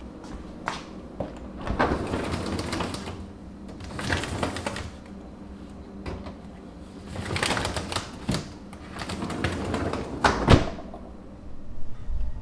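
A refrigerator's bottom freezer drawer is slid open, and plastic bags of frozen food rustle as a glass food container is set in among them. The drawer shuts with a sharp knock near the end.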